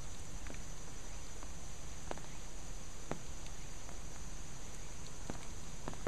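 Water issuing from cracks in a concrete retaining wall after a typhoon's rain: a steady rush of flowing water, with about half a dozen irregular drips and splashes.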